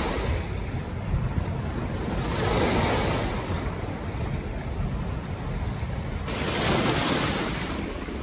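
Wind-driven waves splashing against driftwood and rocks at the water's edge, with wind buffeting the microphone. The splashing surges louder twice, about two and a half seconds in and again around six and a half seconds.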